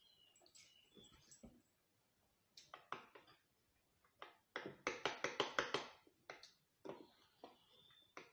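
Faint close-up mouth sounds of eating: soft wet clicks and smacks, with a quick run of louder smacking clicks about five seconds in.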